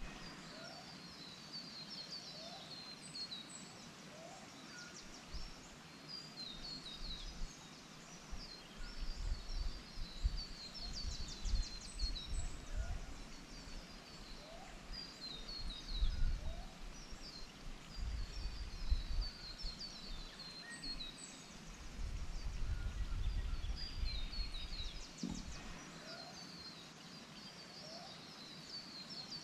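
Forest ambience of small birds chirping in quick high trills, with a short rising lower call repeating every couple of seconds and intermittent low rumbling through the middle.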